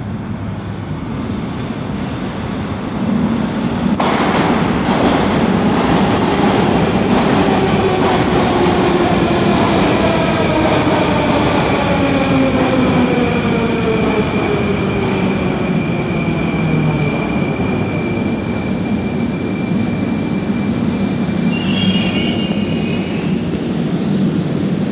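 Moscow Metro train arriving at the platform. It comes in loud about four seconds in, and the whine of its traction motors falls steadily in pitch as it brakes. A high steady squeal runs under it, and a brief wavering squeal comes near the end as it stops.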